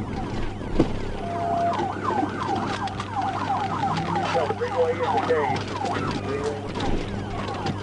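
Police car siren in a fast yelp, its pitch sweeping rapidly several times a second, with a single sharp knock about a second in.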